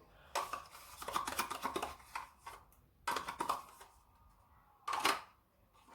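A spoon scraping and knocking as plain yogurt is emptied from its pot into a mixing bowl, in a few irregular scrapes, with a sharp knock about five seconds in.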